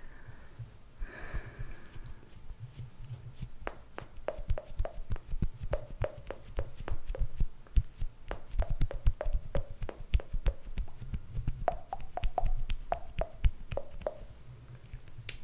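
Cushion compact puff patting close to the microphone: a quick, irregular run of soft, sharp taps, several a second, dabbing on foundation, starting a couple of seconds in.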